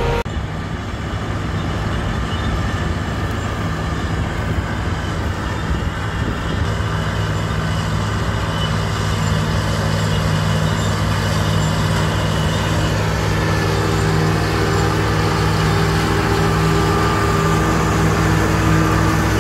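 Diesel farm machinery running steadily: a self-propelled swather driving past on a gravel road, then, from about six seconds in, a John Deere tractor pulling a forage harvester chopping silage from a windrow, a steady engine drone.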